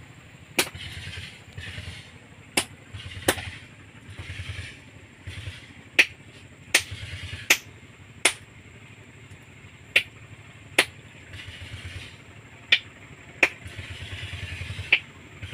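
Sharp knocks, roughly one a second at uneven spacing, over a low motor buzz that comes and goes.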